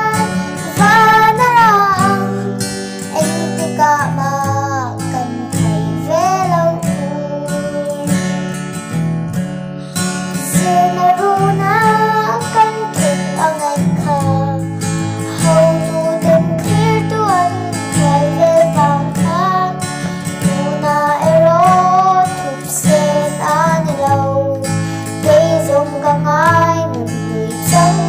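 A young girl singing a melody, accompanied by a strummed acoustic guitar.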